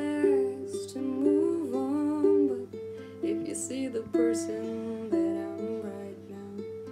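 Ukulele being played, with a woman's voice singing a melody over it.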